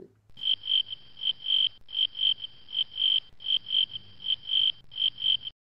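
Cricket chirping sound effect: a high, clean chirp repeated about four times a second in groups with short breaks, loud, cutting off abruptly near the end.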